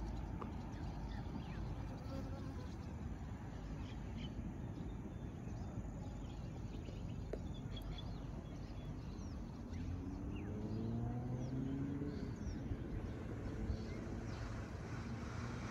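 Open-air riverside ambience: a steady low rumble with faint, scattered bird chirps. From about ten seconds in, a faint pitched call repeats several times.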